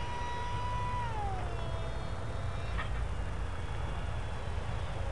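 Brushless electric motor of a small RC flying wing whining steadily in the air, dropping in pitch about a second in as the throttle eases back and then holding at the lower pitch. A steady low wind rumble on the microphone runs underneath.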